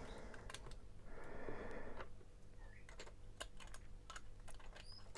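Faint scattered light clicks and taps of small plastic toy pieces being handled, with a soft rustle between one and two seconds in.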